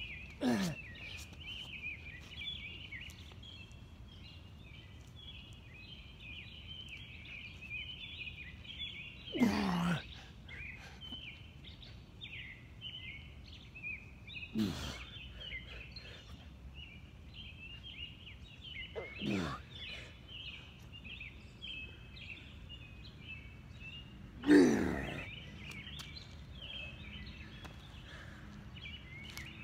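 A man's grunting exhales from the effort of push-ups, five of them about five seconds apart, each falling in pitch, the last the loudest. Behind them runs a steady chorus of high chirping.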